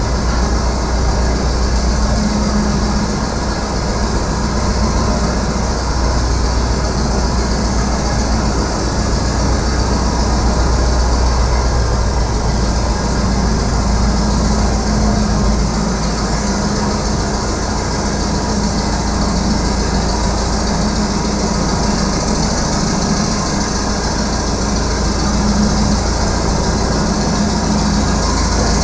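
Caterpillar D7 3T crawler dozer's diesel engine running steadily while the machine travels, its steel tracks clanking and rattling.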